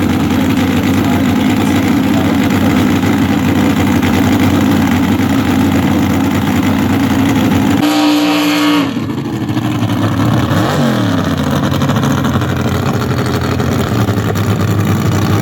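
Loud racing engine running hard. About eight seconds in a strong, steady engine note stands out for about a second and then cuts off. A vehicle's pitch rises and falls shortly after.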